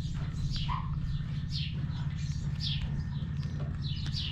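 A bird calling, a short high chirp that falls in pitch, repeated about once a second over a steady low hum.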